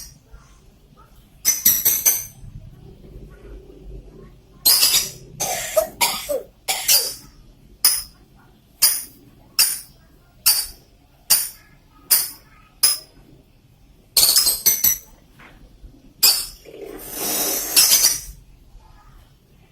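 A pet bird mimicking coughing and chattering: a run of short, sharp calls a little over one a second, then a few longer, harsher ones near the end.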